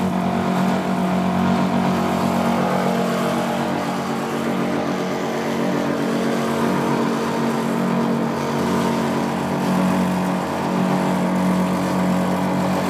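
Tumble dryer running with a loud, steady droning hum that swells and eases slightly every few seconds; it is the horrible noise of a fault the owner cannot identify.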